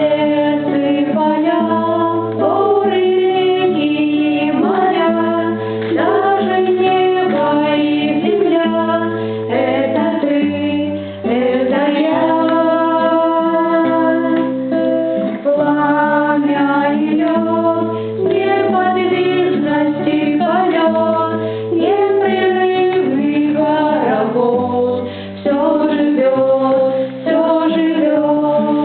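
A song: singing over instrumental accompaniment, with a bass line that holds each note for a second or two, then moves to the next.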